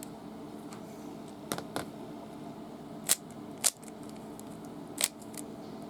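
A handful of sharp plastic clicks from a 3x3 Rubik's Cube being handled and turned, the loudest two a little past halfway, over a faint steady hum.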